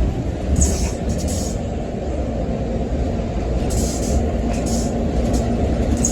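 Steady low rumble of a city bus's engine and road noise heard from inside the bus, with two short high hissing bursts about a second in and near the middle. These bursts are the kind of intermittent noise the rider is trying to trace to either a window or the air brake.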